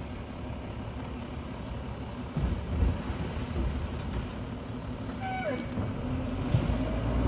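Diesel engine of a recycling garbage truck running at a distance, a steady low rumble that grows a little louder near the end.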